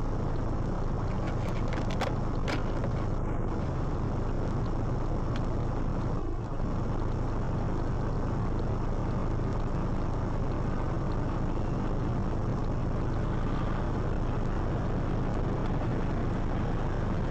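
Steady low engine hum and cabin noise picked up by a dashcam in a stopped car, with a few faint clicks about two seconds in.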